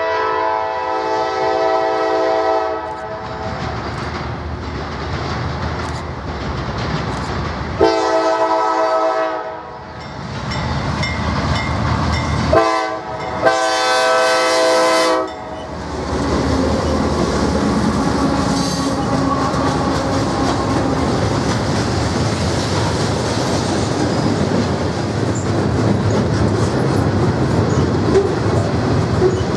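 CSX freight locomotive horn sounding the grade-crossing signal of long, long, short, long blasts, the last long blast as the lead locomotives pass close by. Then the diesel locomotives and a long train of loaded steel coil cars roll past, wheels clattering steadily on the rails.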